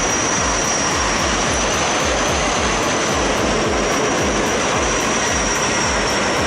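Helicopter running: a steady high whine over dense engine noise, with a rapid low thudding of the rotor about four times a second.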